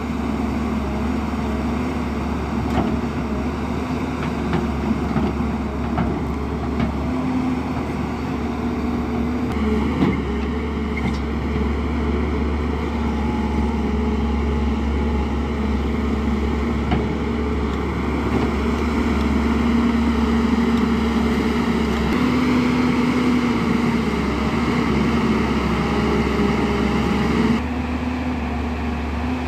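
JCB NXT 205 tracked excavator's diesel engine running steadily under load while it digs, its pitch shifting a little as it works. Occasional sharp knocks come through over it, mostly near the start and around ten seconds in.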